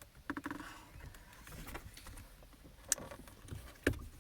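Light handling noise of a plastic wiper switch assembly being turned over in the hands, with scattered soft knocks and two sharp clicks, about three and four seconds in.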